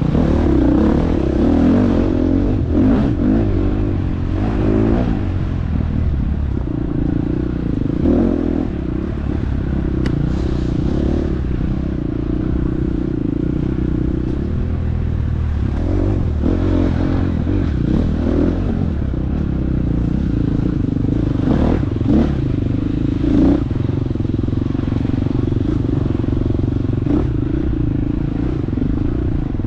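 Husqvarna FX 350 single-cylinder four-stroke dirt bike engine running hard, revs rising and falling. Frequent knocks and clatter run through it.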